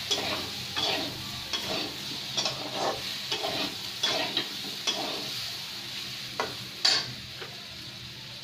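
Steel spatula scraping and turning potatoes, peas, white radish and tomato in a hot kadhai, over a steady sizzle of frying. The strokes come about once or twice a second, the loudest just before the last few seconds, after which only the sizzle goes on.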